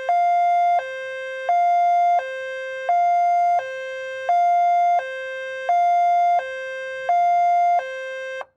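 Two-tone police siren alternating between a low and a high note about every 0.7 seconds, the higher note louder, switching cleanly with no glide between them. It cuts off abruptly just before the end.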